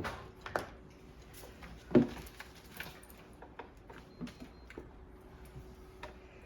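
Light clicks and taps of objects being handled, with one louder knock about two seconds in, over a faint steady hum.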